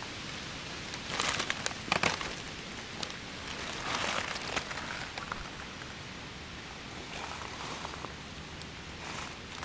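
Dry fallen leaves rustling and crackling in short spells, loudest about a second in and again around four seconds, over a steady background hiss.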